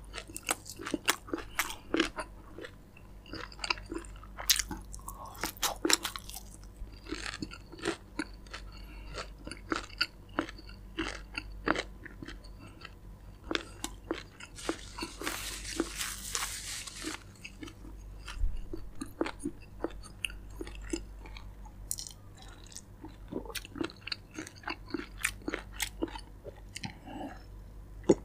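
Close-miked chewing and crunching of crispy fried chicken, with bites into the skin crackling irregularly throughout. About halfway through there is a brief hissing rush of sound.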